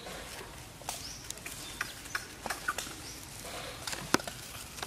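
Dry leaf litter and twigs crackling in quick, irregular clicks as macaques shift and reach on the ground, with one louder snap about four seconds in.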